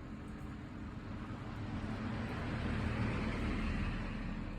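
A road vehicle passing by, its noise swelling to a peak about three seconds in and then fading.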